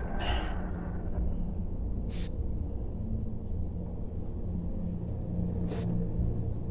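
Steady low hum, with three short hissing swishes of hands rubbing over skin during a massage, spread a few seconds apart.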